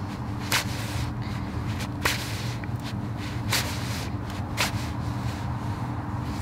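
Carving knife slicing shavings from a green-wood spoon blank with pull strokes: four crisp cuts, one every second or so.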